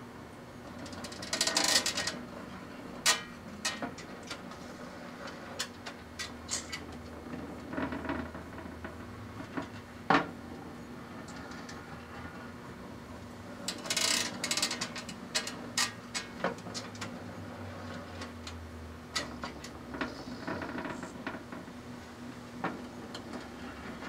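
Small Magic Chef microwave oven running with a steady hum while a string of candy-corn Christmas lights inside arcs and crackles under the microwaves. Scattered sharp snaps, a single loud snap about ten seconds in, and two loud bursts of dense crackling, one a second or two in and another around fourteen seconds in.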